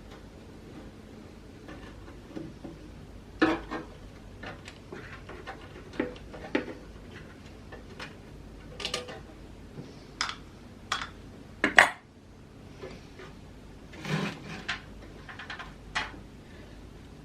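Hand tools and metal parts clinking and knocking irregularly while a 1940s welder's high-frequency unit is taken apart: a string of sharp metallic clanks, the loudest about twelve seconds in.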